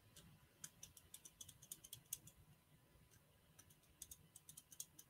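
Precision screwdriver turning the tiny screws in a Casio F-91W's metal caseback: faint quick clicks in two runs, the second starting about three and a half seconds in.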